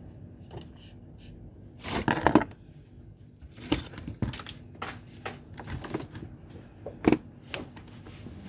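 Clicks and light clatter of small metal parts and tools being handled on a workbench, with a short louder burst of noise about two seconds in.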